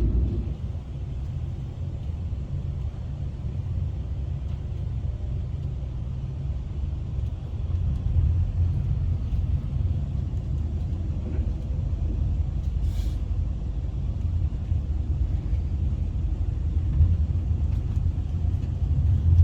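Steady low rumble of an Intercity Express train running, heard from inside, with a short hiss about thirteen seconds in.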